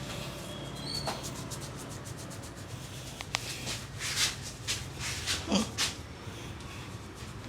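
Head massage: hands rubbing and patting the scalp, hair and skin, a run of short crackling strokes that come thickest and loudest about four to six seconds in.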